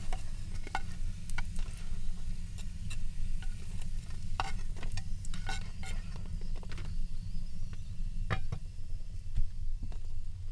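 Flatbread frying in oil in a pan: sizzling with scattered sharp clicks and pops, and a metal fork tapping and scraping on the pan as pieces are lifted out.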